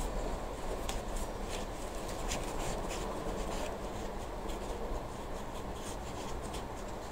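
Gloved fingers pressing soil down around the inside edges of a small plant pot: soft, scratchy rustling with irregular light ticks, over a faint steady background noise.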